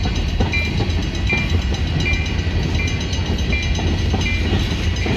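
Freight train of tank cars rolling past: a steady low rumble of steel wheels on the rails. Over it a short high ding repeats about every three-quarters of a second.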